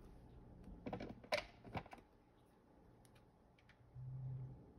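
Faint handling noise of hands pulling sewing thread tight on crocheted work: a few soft sharp clicks and rustles between one and two seconds in, then a short low hum near the end.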